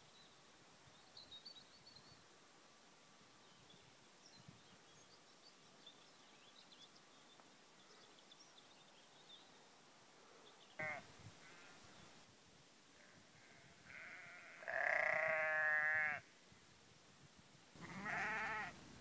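Sheep bleating: a short bleat about halfway through, then a loud, drawn-out bleat and a second shorter one near the end. Faint bird chirps sound in the first half.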